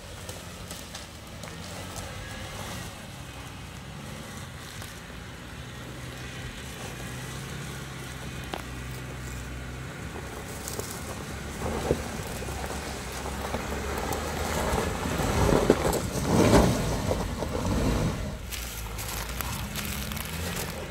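Stock Jeep Wrangler engine running at low revs as the 4WD crawls through deep ruts on a dirt track. It gets louder and rougher in the second half, loudest about three-quarters of the way through as the vehicle comes close.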